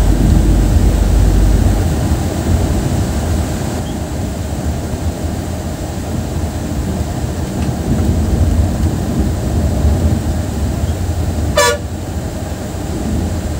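Steady low rumble of a moving bus's engine and tyres on the road, with one short horn toot near the end.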